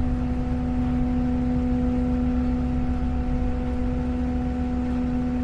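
Boat engine running at a steady idle: a constant low hum over a rumble.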